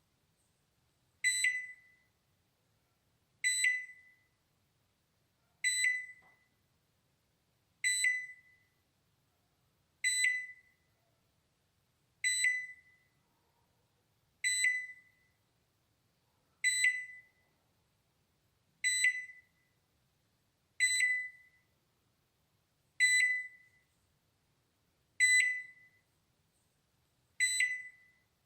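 Balay microwave oven's alarm: a single high beep repeated about every two seconds, each starting sharply and fading quickly.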